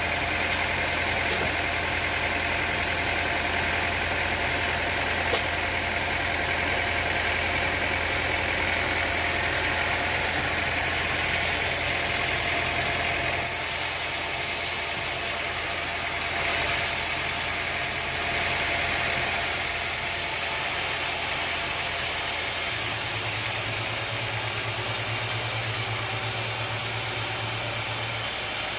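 Sawmill machinery running steadily with a low hum and a hiss over it; the hum changes pitch about halfway through and again near the end.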